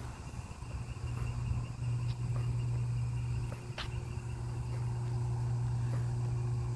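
A steady low hum, with faint insects chirping above it and a single short click about four seconds in.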